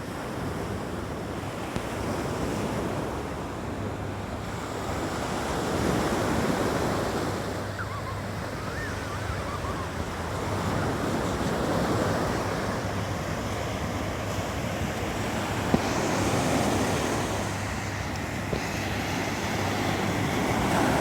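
Ocean waves breaking and washing on a beach, the surf swelling every few seconds over a steady low rumble of wind on the microphone.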